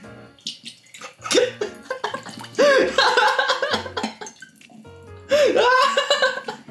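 Background music with a beat under drawn-out, wavering voices, as canned silkworm pupae and their liquid are poured from the can onto a plate.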